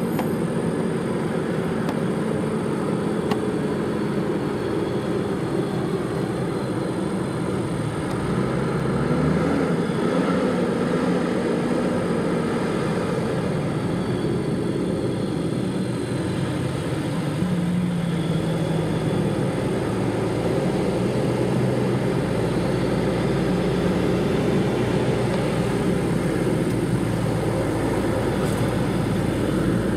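Heavy-haul Mack truck's 16-litre MP10 diesel engine running steadily while it pulls an oversize load, its pitch stepping up and down a couple of times. A deeper rumble joins in about two-thirds of the way through.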